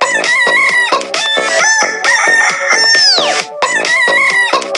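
Techno dance track built on rooster crowing and clucking samples over a steady beat; a long crow held from about two seconds in ends in a steep downward slide in pitch.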